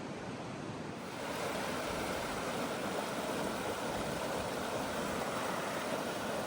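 Rushing water of a creek or small waterfall: a steady, even rush that grows louder about a second in.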